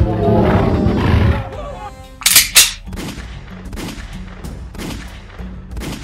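Panicked crowd shouting that dies away, then dubbed gunshot sound effects for a toy police officer's pistol: two loud shots about two seconds in, followed by a steady string of quieter shots, two or three a second, over background music.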